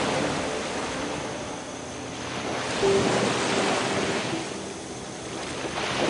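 Rough sea surf washing and breaking in slow surges, swelling and ebbing about every three seconds. Faint held music notes sit underneath.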